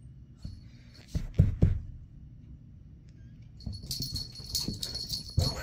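Chihuahua puppy scampering on carpet after a ball, its harness tag jingling in a quick run of small clicks and rings from a little after halfway. A few soft thumps come about a second in.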